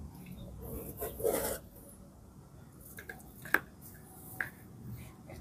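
Hands pressing and rubbing potting soil around a plant's base in a plastic pot, firming it in: gritty rustling and scraping, louder about a second in, with a couple of sharp clicks later on.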